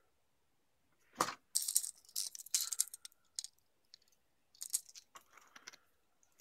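Plastic lure packaging being handled and opened and the crankbait lifted out: a bump about a second in, then bursts of crinkling and clicking.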